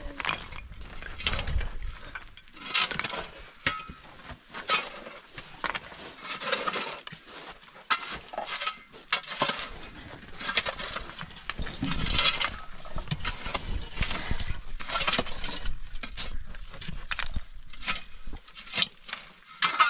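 Shovels scraping and digging into dry, stony dirt in irregular strokes, with small stones clattering. At times a straw broom brushes across a carpet.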